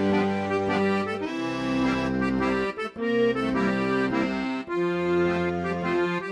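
Background accordion music, held chords that change about every second, in a traditional style.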